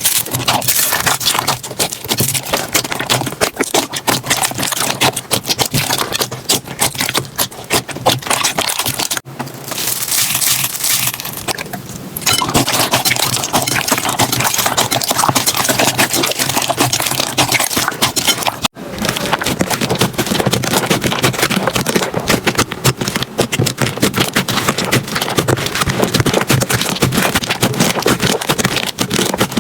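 Slime being squeezed and worked by hand, giving dense, continuous crackling and clicking. The texture changes abruptly twice, about nine and nineteen seconds in.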